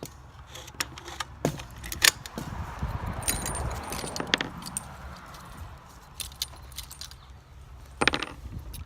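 Metallic clicks and clinks of rifle cartridges being handled, with a sharper cluster of clicks near the end. A rush of wind on the microphone swells for a couple of seconds in the middle.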